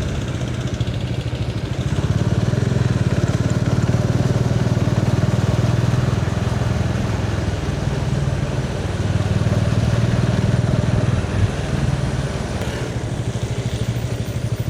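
Bajaj Dominar 400's single-cylinder engine running with a fast, even beat, its level rising and easing a few times as the throttle changes.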